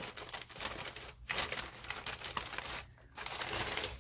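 Paper packaging crinkling and rustling as a mail package is unwrapped and its contents handled, with brief pauses about a second in and near three seconds.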